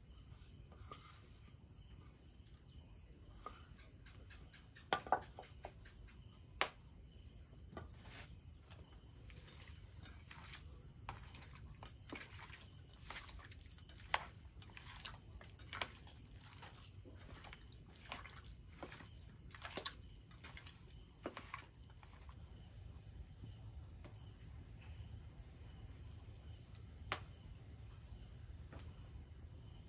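Insects chirping steadily in a high, even pulse, with scattered faint sharp clicks and taps from raw meat and bamboo skewers being handled in a steel bowl.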